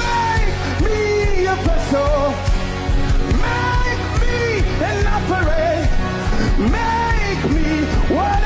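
Live gospel worship music: a band plays steadily while a singer sings long gliding vocal runs with no clear words.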